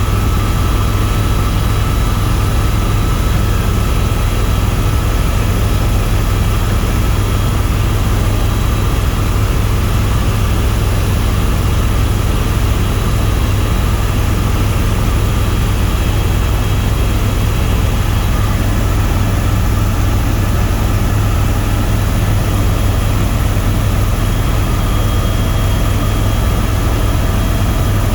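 Tour helicopter in flight, its engine and rotors running steadily: a constant low drone with a steady higher whine on top.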